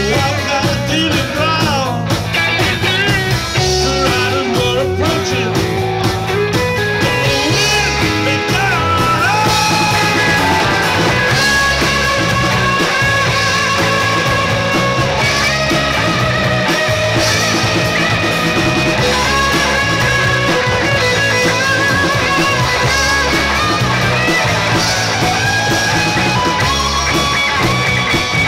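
Live rock band playing: electric guitars over a drum kit and bass with a steady beat, loud throughout.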